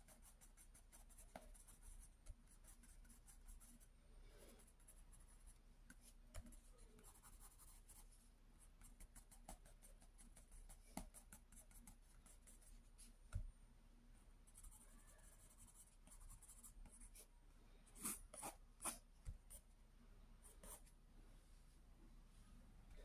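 Faint scratching of a graphite pencil on sketchbook paper, in quick short strokes as it draws and shades, with a few sharper ticks about three-quarters of the way through.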